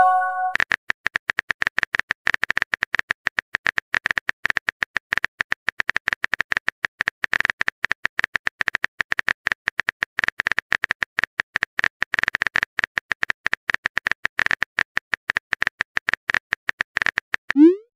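Phone-keyboard typing sound effect: a fast, uneven run of short clicks. A brief chime of a few tones sounds at the very start, and a short rising blip comes just before the end, the app's message sounds.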